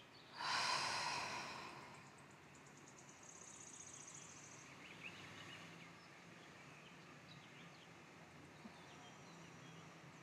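A long breath out, loudest about half a second in and fading over a second and a half, then birds chirping faintly, with a fast high trill for a second or so near the middle.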